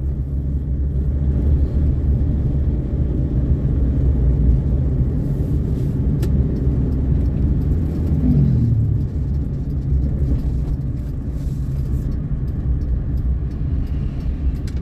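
Steady low rumble of road and engine noise inside a small Suzuki Karimun hatchback while it drives. A brief falling tone comes about eight seconds in.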